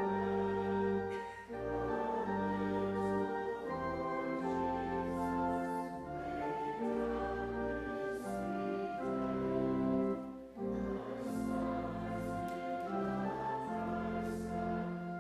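Pipe or electronic church organ accompanying a congregation singing a hymn in held chords, with two short breaks between phrases.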